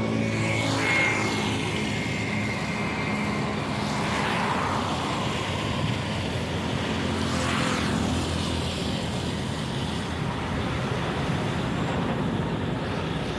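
Diesel engine of a Goodeng 20-ton horizontal directional drilling rig running steadily under the operator's control. A higher rushing sound swells and fades three times over it.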